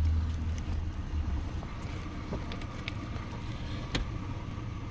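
Car idling, heard from the driver's seat. A strong low rumble at the start settles into a steady low hum after about a second and a half, and there is a single sharp click about four seconds in.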